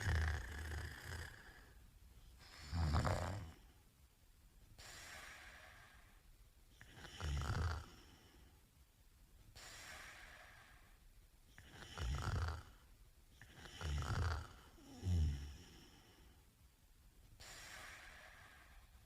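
A man snoring in his sleep: six low snores every few seconds, two of them close together past the middle, with softer breaths in between.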